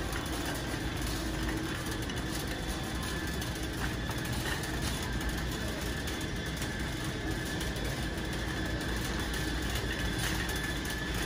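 Steady drone of a car being driven, heard from inside the cabin: engine and road noise.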